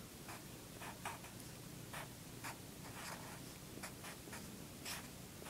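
Sharpie felt-tip marker writing on paper: a faint string of short pen strokes, about two a second.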